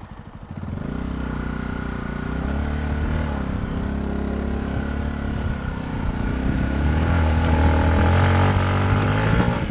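Yamaha WR125 dirt bike's single-cylinder four-stroke engine running and revving as it is ridden. It starts about half a second in, and the pitch rises and falls before getting louder near the end.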